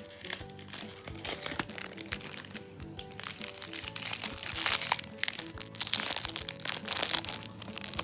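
Plastic packaging crinkling and crackling in repeated short bursts as it is torn and unwrapped, over background music with a simple melody.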